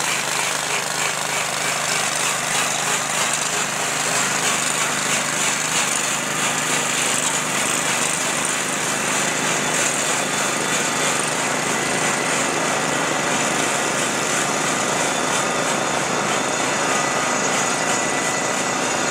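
RSB 120 joint cleaner running: its small engine drives rotating wire brushes that scour dust and debris out of an expansion joint in concrete pavement. The noise is steady and harsh, with a strong high hiss.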